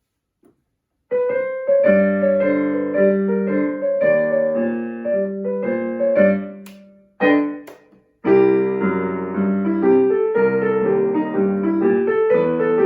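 Solo piano playing a piece of notes in short phrases, starting about a second in. The music breaks off twice briefly near the middle, then resumes.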